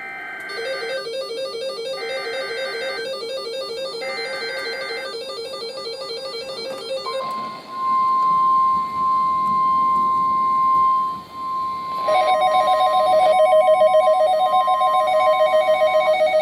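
NOAA Weather Radio alert for a tornado warning: three one-second bursts of the warbling SAME header data, with a rapid beeping underneath. Then comes the steady 1050 Hz warning alarm tone for about nine seconds. About twelve seconds in, weather radio receivers join with a loud, fast pulsing alarm beep.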